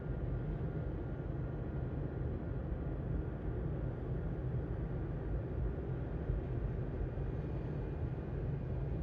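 Steady low rumble of a BNSF freight train of covered hopper cars rolling past a level crossing, heard from inside a stopped car's cabin.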